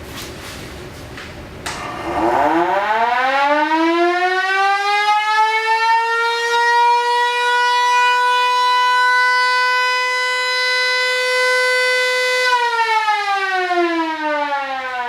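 Federal Signal Model 2 electromechanical siren with a Model A chopper, run at reduced power through a potentiometer: after a few knocks it winds up over about four seconds into a steady wail, holds it, then winds down about two seconds before the end as the power is cut.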